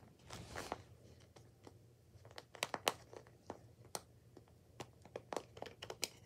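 Sharp plastic clicks and snaps of a disc being pried off the centre hub of a plastic Blu-ray case, many in quick succession through the second half, after a brief rustle near the start.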